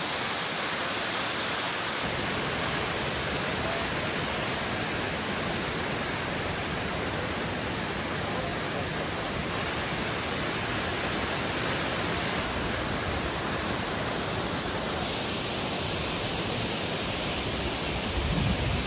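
Steady rush of water from a swollen, fast-flowing river in flood and a tall waterfall pouring into it.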